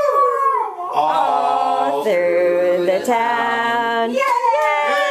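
A small dog howling along with people singing, its howl sliding down in pitch at the start and again near the end. In between, several voices hold three long sung notes.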